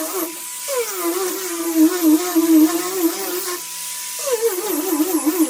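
Random orbital sander buzzing against wood, its pitch wavering unsteadily. It cuts out briefly twice, near the start and a little past halfway, and each time comes back with a falling whine.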